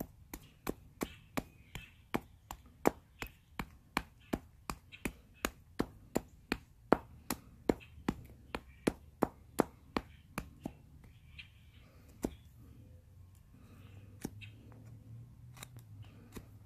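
A chunk of Georgetown flint used as a hand axe chopping at the end of a wooden stick to round it, giving sharp ticks at about three a second. After about ten seconds the strokes thin out to a few scattered taps.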